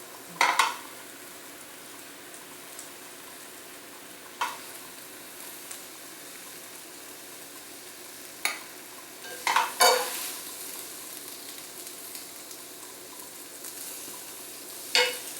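Brussels sprout leaves sizzling steadily in a hot sauté pan with a little vegetable stock, with sharp utensil clinks now and then as they are lifted out and plated, loudest a little under 10 seconds in.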